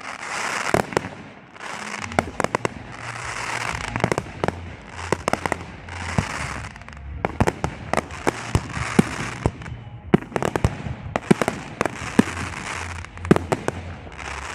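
Fireworks display: aerial shells bursting in quick succession, many sharp bangs over repeated waves of crackling, with a low rumble underneath.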